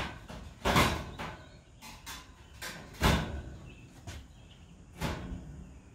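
Metal baffle grease filters being slid and pushed into the rails of a kitchen exhaust hood: sliding scrapes and metal clanks, loudest about a second in, around three seconds in and again about five seconds in.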